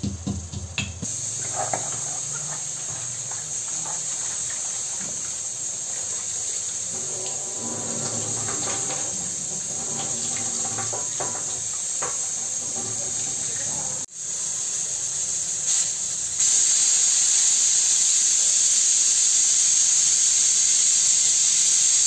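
Steady high hiss from a pressure cooker of moong dal cooking on the stove. It drops out briefly about two-thirds of the way through and is louder for the last quarter.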